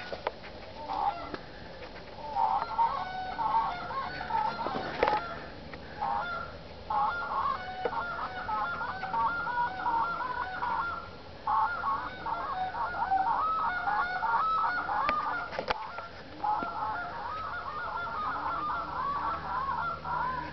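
Geese honking and cackling in rapid, overlapping runs of calls, with brief pauses twice.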